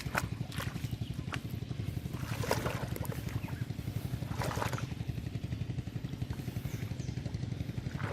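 A small engine runs steadily with a fast, even low hum, while water splashes and sloshes twice, about two and a half and four and a half seconds in, as hands work in muddy water.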